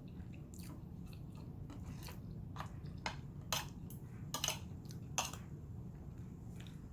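A person chewing food close to the microphone: irregular wet clicks and smacks of the mouth, a few louder ones about halfway through, over a low room hum.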